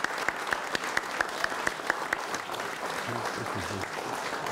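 Audience applauding: a room full of people clapping together, with some sharper individual claps standing out in the first two seconds.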